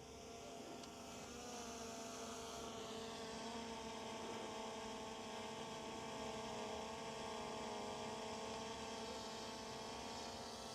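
DJI Mini 3 Pro quadcopter drone flying close by, its propellers giving a steady, pitched buzzing hum that grows a little louder over the first couple of seconds.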